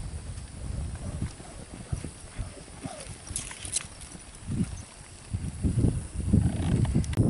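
Horses' hoofbeats on soft arena dirt: irregular low thuds, growing denser and louder near the end.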